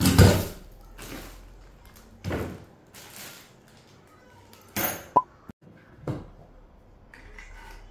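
Plastic wrapping and cardboard rustling, with a few knocks, as office-chair parts are handled and pulled from their box, in several short bursts. A short high blip comes about five seconds in.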